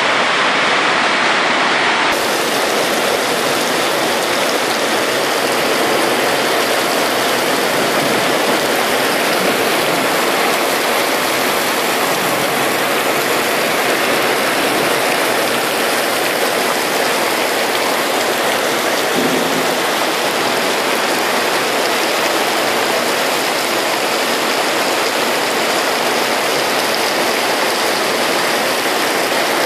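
Heavy rain pouring down in a steady, dense hiss from a nighttime thunderstorm downpour.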